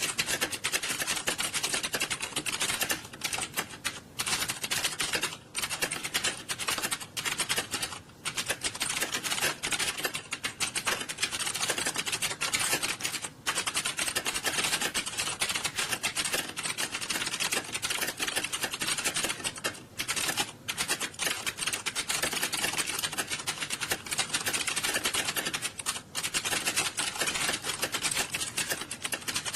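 Many computer keyboards typed on fast at the same time during a timed typing test: a dense, unbroken clatter of keystrokes with a few brief lulls.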